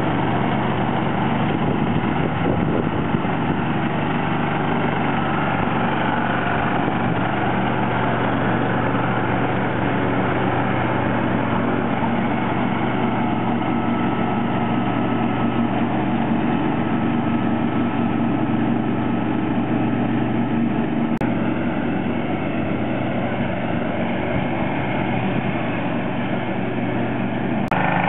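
John Deere 316 lawn tractor's 16-horsepower engine running steadily under the load of mowing, with the mower deck cutting grass.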